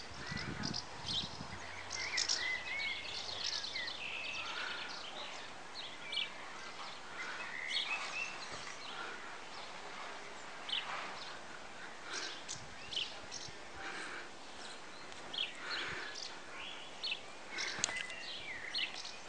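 Small birds chirping and twittering in many short calls, over a steady outdoor background hiss, with a brief low rumble at the very start.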